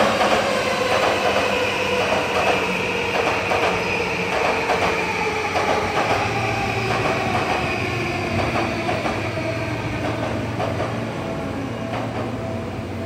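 Electric commuter train running on rails, its motor whine falling slowly and steadily in pitch as it slows, with wheel clatter and scattered clicks over the rail joints.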